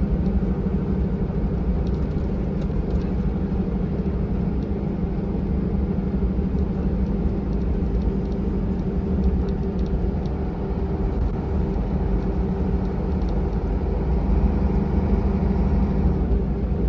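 A Volvo B7R bus's six-cylinder diesel engine runs at a steady speed, heard from inside the passenger cabin along with road and tyre noise. It makes an even, unchanging drone.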